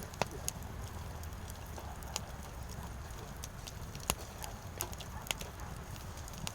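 Firewood burning with a steady low rumble and sharp, scattered crackling pops, the loudest about four seconds in.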